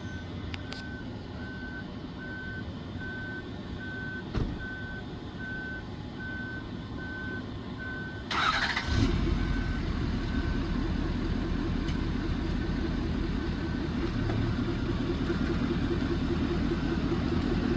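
Warning beeper sounding a steady high beep about twice a second while a boat is lowered by a lift. About eight seconds in an engine starts with a sudden burst and then runs with a low steady rumble, the beeping continuing fainter under it.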